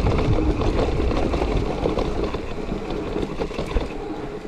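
Mountain bike descending a rough trail, heard on an action camera: a rumble of wind and tyre noise with scattered rattles and knocks from the bike, easing off toward the end.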